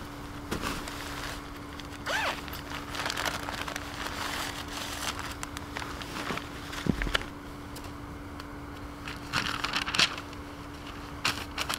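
Boots crunching on snow and the rustle and crinkle of paper and gear being handled, in irregular bursts, over a faint steady hum.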